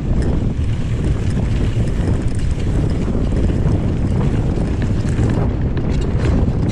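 Wind buffeting the microphone of a camera riding on a mountain bike during a fast descent. The wind is a loud, steady rush, and a few sharp clicks or rattles come near the end.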